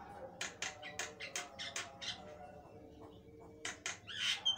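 Caged Javan myna (jalak kebo) singing vigorously: a quick run of about eight short, sharp notes in the first two seconds, then two more and a harsher, longer call near the end.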